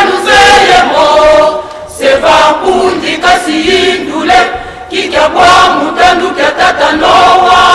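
A choir singing in phrases that break briefly about two seconds in and again around four and a half seconds in.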